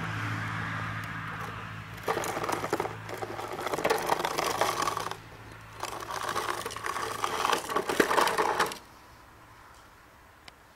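Plastic toy tricycle wheels rattling over concrete paving blocks as the tricycle is pushed along, in two stretches of clatter that stop about nine seconds in.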